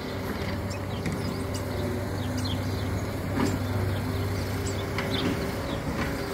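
Garbage truck engine running steadily nearby, a low even hum with a few steady tones above it. Short faint high chirps come and go over it.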